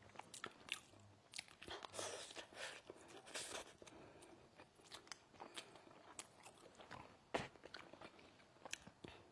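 Faint close-up chewing and mouth sounds of someone eating, with scattered small clicks and smacks.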